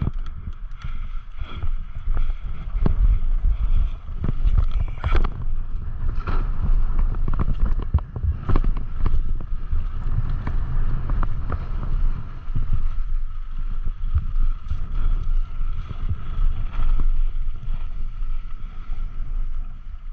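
Strong wind buffeting the microphone during a mountain bike ride, with a steady rumble and many sharp clicks and rattles from the bike going over rough trail.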